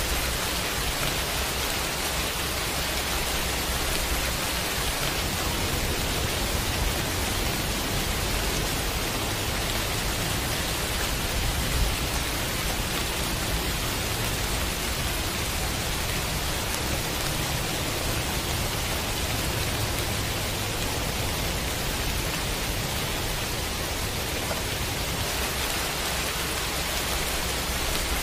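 Steady heavy rain, an even hiss of pouring water. Through the middle, a low rumble of distant thunder swells and fades under it.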